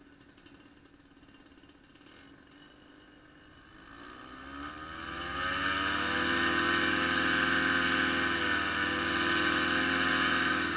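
Solo 210 single-cylinder two-stroke paramotor engine and propeller idling faintly, then opened up about four seconds in, rising in pitch to a loud, steady full-throttle run. The throttle is cut back right at the end.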